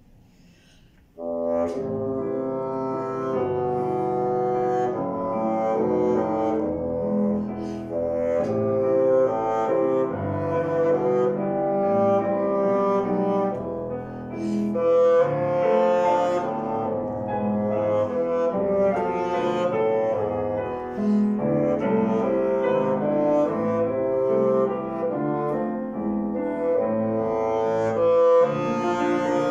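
Bassoon and piano playing a classical theme and variations together, coming in abruptly after about a second of quiet.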